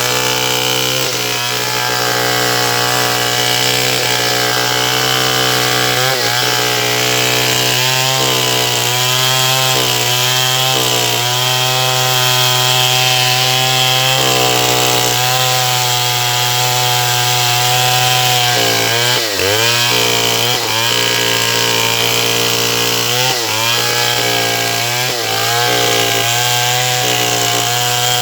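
Stihl 070 two-stroke chainsaw engine running hard while sawing sengon wood, at a steady high pitch. In the second half its pitch dips and recovers several times.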